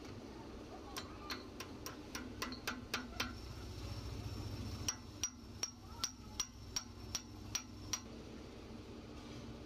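A hammer tapping a steel punch to drive a split pin through the castle nut on a truck's front wheel hub spindle. There are two runs of quick, light metallic taps, about three a second, and the second run rings.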